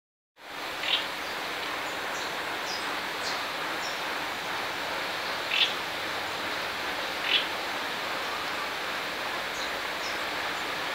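Outdoor ambience: a steady hiss of background noise with short bird chirps through it. Three louder chirps come about a second in, near the middle and a little after, with fainter high peeps between them.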